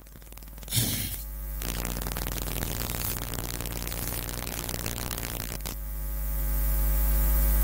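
Electrical mains hum: a steady buzz with a stack of overtones that grows louder toward the end. A harsh hiss lies over it for several seconds in the middle.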